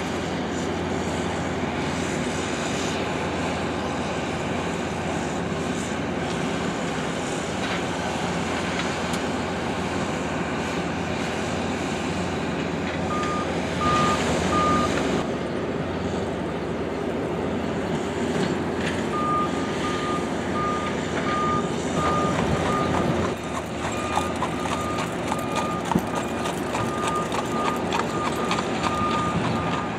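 John Deere skid steer's diesel engine running steadily while working dirt. A backup alarm beeps briefly about halfway through, then beeps again in an even string through the last third as the machine reverses.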